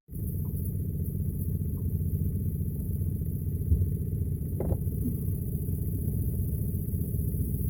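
A boat's outboard motor running steadily with a low, pulsing rumble, with a single brief knock near the middle.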